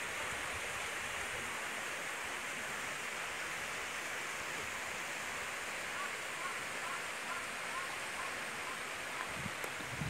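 Steady rush of stream water spilling over a low stone weir. A few faint bird chirps come in over it in the second half.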